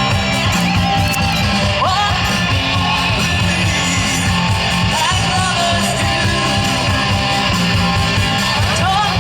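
Rock music with guitar and a steady beat, a sung or bent melody line on top.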